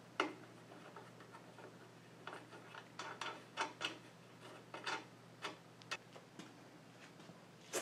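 Irregular light clicks and taps of metal parts being handled as an aluminium fence rail and its hardware are fitted to a bandsaw's metal table, over a faint steady low hum.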